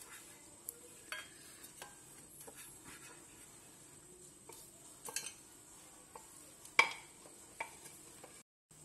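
Silicone pastry brush smearing oil over a hot non-stick frying pan: faint brushing with scattered light taps against the pan, and one sharper click about seven seconds in.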